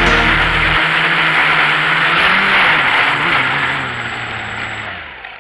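Quadcopter electric motors and propellers running loud and close to the onboard microphone, a dense buzz with a thin high whine. The sound dies away over the last couple of seconds as the drone settles into the grass, and the high whine cuts off near the end.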